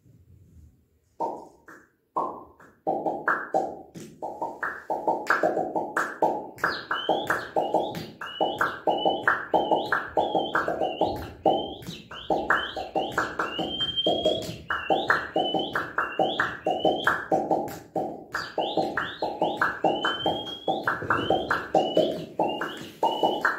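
Jaw harps (chang-qobuz) played in a fast, steady rhythm. The twanging pulses come about three a second, with a high, gliding overtone melody riding above them. A few separate strokes come about a second in, and the steady pattern sets in from about three seconds.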